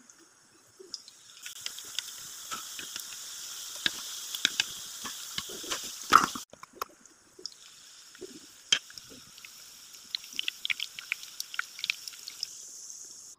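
Batter fritters of squash, cabbage and sausage shallow-frying in hot oil in a pan: a steady sizzling hiss with frequent sharp popping crackles. The loudest pop comes about six seconds in, and the sizzle then breaks off for about a second before it resumes.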